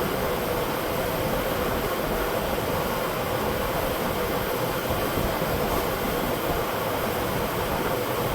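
Steady rushing hiss of compressed air inflating a truck tire on a split-rim wheel, mixed with the steady drone of a shop fan.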